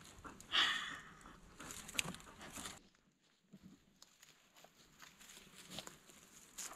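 A dog sniffing close up, with short hissing sniffs early on, among rustling and handling noises. After a brief lull about three seconds in come scattered faint rustles and crackles of dry leaves underfoot and hands.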